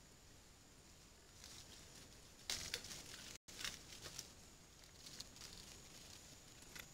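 Coatis foraging and climbing, faint crackling and rustling in dry leaf litter, with a cluster of louder crackles a few seconds in and a momentary cutout of all sound. A faint steady high tone sits underneath.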